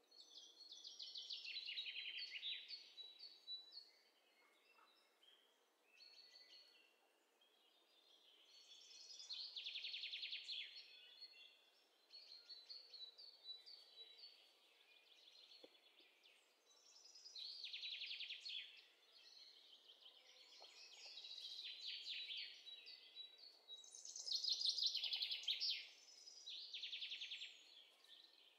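Birds-chirping sound effect: birds chirping in bouts of rapid, high trills that swell and fade every few seconds, the loudest bout near the end.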